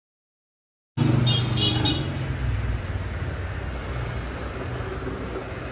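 Silent for about the first second, then steady road-traffic noise with a low engine rumble and a brief high toot near the start.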